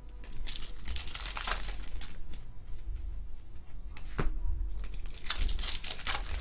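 A trading-card pack wrapper crinkling and tearing as the pack is ripped open. The rustling comes in two spells, near the start and again near the end, with a sharp tap in between.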